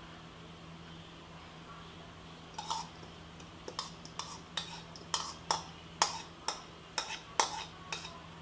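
Metal spoon clinking and scraping against a bowl and a steel mesh sieve as soaked moong dal is scooped out to drain. Quiet at first, then a run of sharp clinks, about two a second, from about two and a half seconds in.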